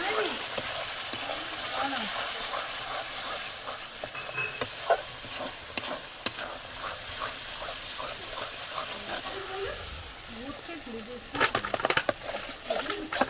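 Onion and ginger-garlic masala with powdered spices sizzling and frying in a pan on a wood-fired chulha while it is stirred, the stirring scraping and knocking against the pan. A run of quick scrapes comes near the end.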